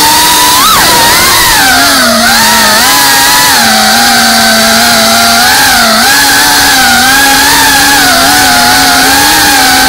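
FPV racing quadcopter's brushless motors and propellers whining, picked up by the camera mounted on the drone itself, so the sound is loud and close. The pitch wavers up and down with the throttle, with a sharp swoop about a second in.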